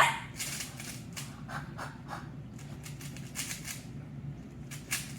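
Plastic speed cube being turned fast by hand during a solve: an irregular run of quick clicks and scrapes from the layers snapping round.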